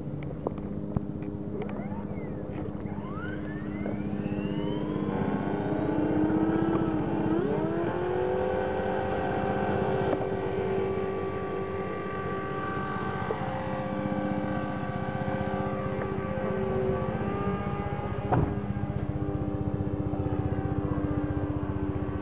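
Model RC helicopter spooling up: its motor and rotor whine rises in pitch over a few seconds, then holds a steady pitched drone as it hovers and climbs away. One short sharp knock sounds about three-quarters of the way through.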